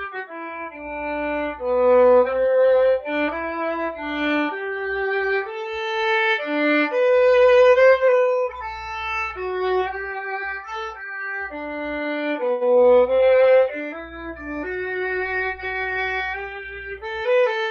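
Solo violin playing a slow melody of single held notes, heard over a video call with 'original sound' switched off; the call's sound processing drops about three of the notes.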